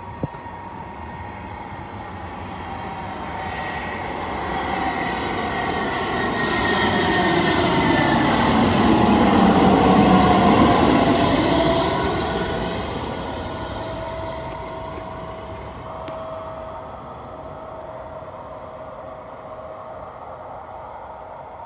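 Airbus A319 jet airliner on final approach passing low overhead: the engine noise builds to a peak about ten seconds in, then fades, the engine whine dropping in pitch as it passes.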